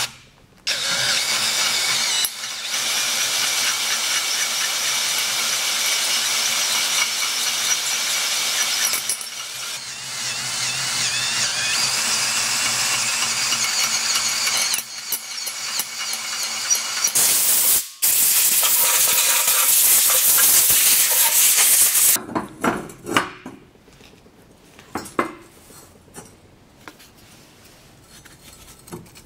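Cordless drill drilling out holes in the turbo flange of a cast-iron exhaust manifold, running in long stretches with a few short pauses. The drilling stops about 22 seconds in, and light clicks and clinks of the manifold being handled follow.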